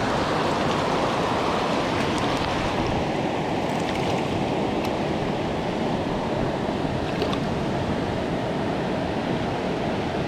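Mountain stream rushing steadily, with a few faint ticks.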